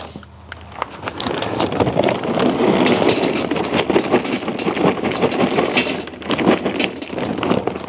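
Charcoal briquettes poured from a paper bag into the charcoal basket of a Weber Smokey Mountain smoker: a continuous clatter of briquettes tumbling onto one another. It builds about a second in and stops near the end.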